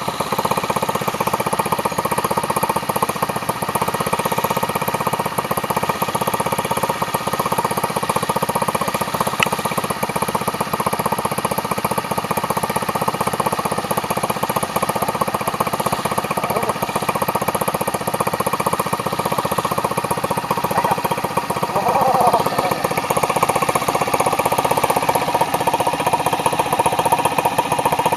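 Small single-cylinder motorcycle engine running steadily, with a fast, even firing beat.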